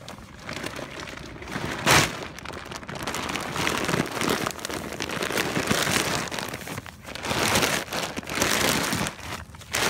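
Rustling and rubbing from the camera being handled and moved about, with one sharp knock about two seconds in.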